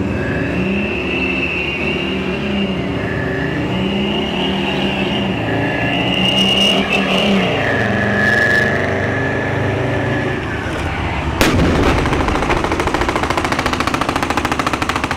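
Type 74 tanks' diesel engines revving up and down as they manoeuvre, with a high whine over them. About eleven seconds in a single loud bang, followed by a fast, even rattle that runs on.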